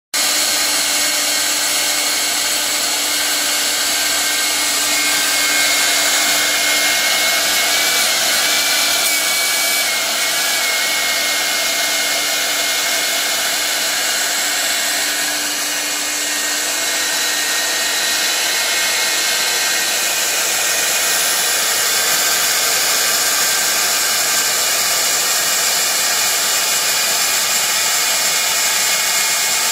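Air-cooled spindle of a 4-axis CNC router running at speed as its bit carves a wooden log: a steady high-pitched whine with hiss. A fainter tone wavers in pitch for a while about five to ten seconds in.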